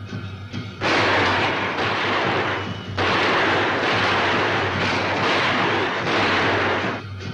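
Dense gunfire from many guns at once, merging into a loud continuous din on a film soundtrack. It starts about a second in, breaks briefly near three seconds, and stops suddenly near the end.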